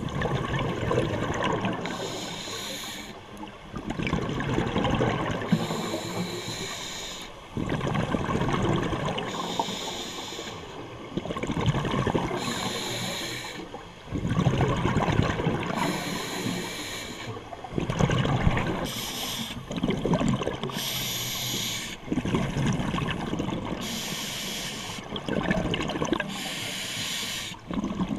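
Scuba diver breathing underwater through a regulator: a hiss on each inhalation alternating with the rush of exhaled bubbles, a breath every few seconds.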